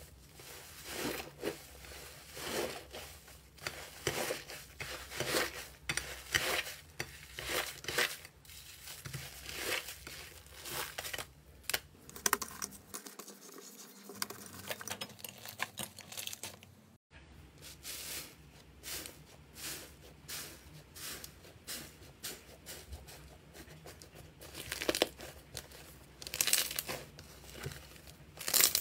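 Slime being squeezed and worked by hand close to the microphone: repeated crinkly, crackling bursts, several a second, with a brief break about two-thirds through.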